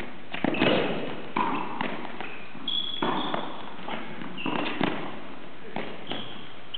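Footbag net rally: a string of dull thuds as the footbag is kicked and the players land and step on the court, with a few short high squeaks of shoes on the synthetic floor.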